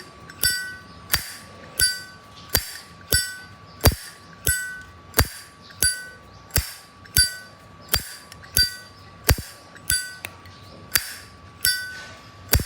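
Zippo lighter lid being flicked open and snapped shut over and over, at a steady pace of about three clicks every two seconds, each click with a short bright metallic ping: the lid's hinge and cam have just been tuned for a louder, crisper Zippo click.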